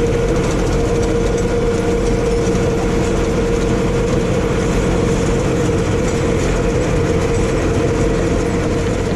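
Farm tractor running steadily under load with a working hay baler, a steady hum riding over the engine rumble and machinery clatter.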